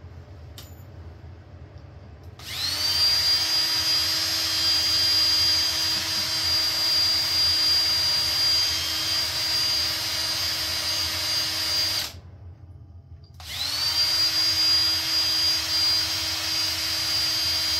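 Electric hand drill running in two long runs. Each starts with a quick rising whine as the motor spins up, then holds a steady high whine, with a gap of about a second and a half between them. The bit is being wobbled to enlarge too-small mounting holes in an SO-239 connector's flange.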